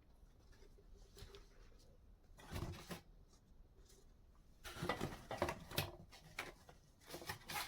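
Faint handling sounds: a brief rustle about two and a half seconds in, then a run of light knocks and rustles as vacuum cleaner parts are lifted out of their packaging.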